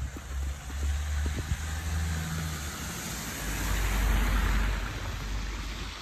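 A car passing on the road: a low engine hum, then tyre hiss that swells to its loudest about four seconds in and fades away. Soft footsteps in snow run underneath.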